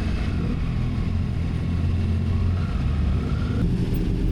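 Motorcycle engine running steadily at low road speed, with a faint rising whine late on and a change in the engine note about three and a half seconds in.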